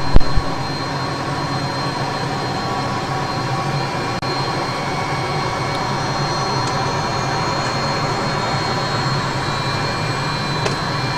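Small jet's turbine engines idling on the ground, heard from inside the cockpit while holding for takeoff clearance: a steady whine with a thin high tone over a low hum. A couple of sharp clicks right at the start.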